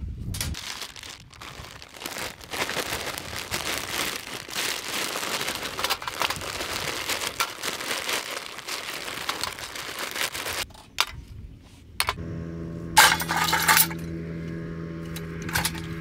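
Plastic bag crinkling as lumps of charcoal are poured into a small folding stainless-steel grill, the pieces clinking and rattling against each other and the metal. About twelve seconds in a steady low hum begins, with a couple of brief jingling rattles near the end.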